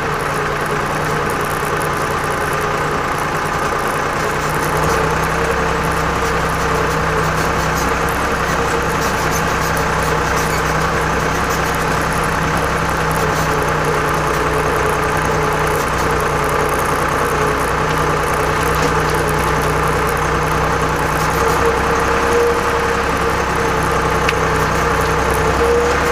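Torpedo TD 55 tractor's air-cooled Deutz-type diesel engine running steadily under load as it pulls in four-wheel drive through deep wet snow. Its low engine note grows stronger about five seconds in.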